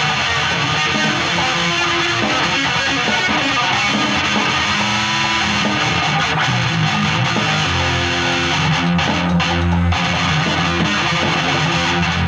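Electric guitar played loud through an amplifier, strummed chords and held low notes running on without a break.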